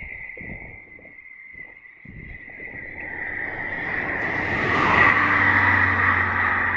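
A car passing on the flooded road, its tyres hissing through standing water as it comes closer, loudest about five seconds in, over a thin steady high whine.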